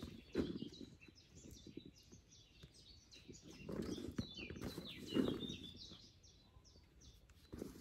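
Small birds chirping in quick runs of short, high notes. Close by, a shoulder bait bag rustles and bumps as it is handled and strapped on, loudest about half a second in and again around four and five seconds in.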